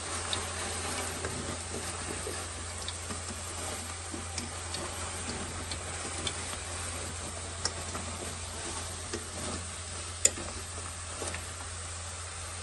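Fried chicken wings being stirred through hot BBQ sauce in a metal pot with a wooden spatula: a steady sizzle with light scrapes and taps of the spatula against the pot, and one sharper knock about ten seconds in.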